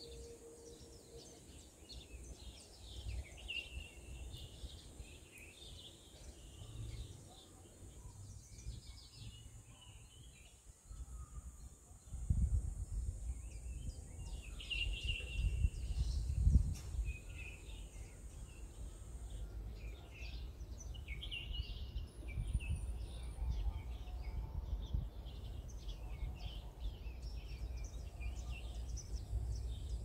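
Woodland birds chirping and calling in short, repeated phrases, over a steady high-pitched hiss that stops about two-thirds of the way through. From a little before halfway, a breeze buffets the microphone with low rumbling gusts, loudest soon after they begin.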